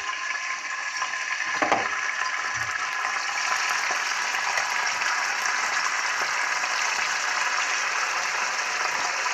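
Slices of goat liver frying in hot oil in a cast-iron pan: a steady sizzle, with a couple of soft knocks in the first few seconds as more slices are laid in.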